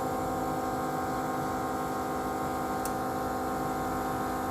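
Steady electrical hum made of several even tones, from the running screen separator machine, with a faint click about three seconds in.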